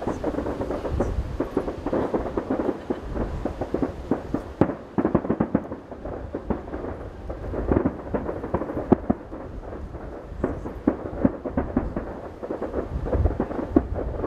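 Fireworks heard from a distance: many shells bursting in quick succession, the bangs and crackles running together into a continuous rumble.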